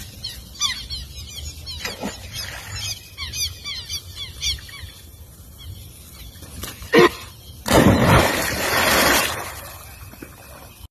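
A herd of capybaras giving rapid, high-pitched squeaking chirps, several a second, through the first half. A sharp knock comes about seven seconds in, followed by a loud rushing noise lasting about a second and a half.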